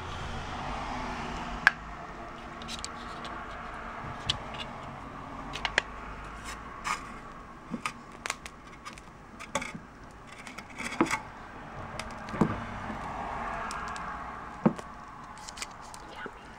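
Plastic lid and foil seal of an ice cream tub being handled and peeled back: scattered sharp crinkles and clicks, the loudest a snap about two seconds in and another near the end.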